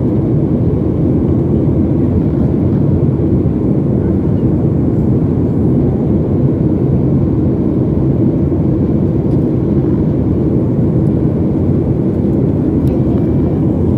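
Jet airliner cabin noise during the climb after takeoff: the steady, low rumble of the engines and airflow heard inside the cabin beside the wing.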